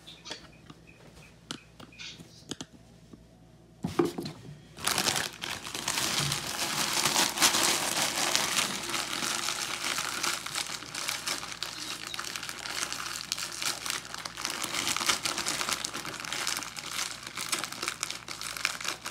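Plastic frozen-food bags crinkling and rustling as they are handled. The first few seconds hold only a few faint clicks; the crinkling starts with a sudden rustle about four seconds in and goes on steadily after that.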